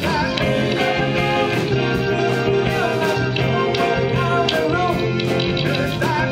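Live band playing an upbeat pop song: voices singing over electric guitar, keyboard, bass and drums, with hand clapping on the beat.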